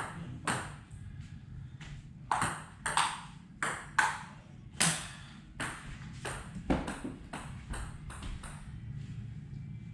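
Table tennis rally: the ball clicking sharply off the bats and bouncing on the table, about fifteen quick hits at an uneven pace that stop about a second before the end.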